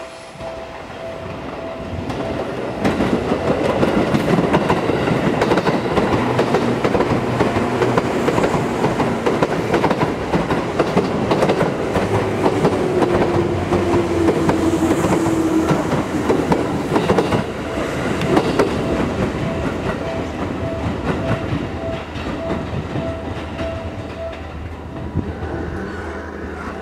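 Seibu 4000-series electric train passing close by, its wheels clattering over rail joints and points. The noise builds about three seconds in and eases off near the end.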